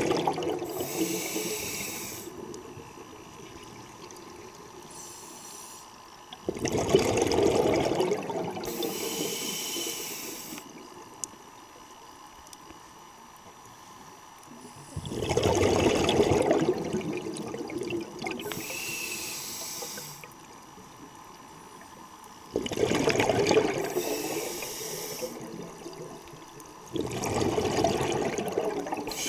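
Scuba diver breathing through a regulator underwater: about four long bubbling exhalations, each fading away, alternating with short hissing inhalations, in a slow even rhythm of roughly one breath every seven to eight seconds.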